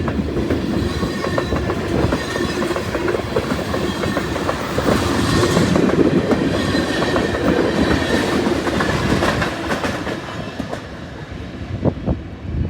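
Freight cars of a long Norfolk Southern train rolling past, with a steady rumble and wheels clicking over the rail joints. It grows quieter about ten seconds in.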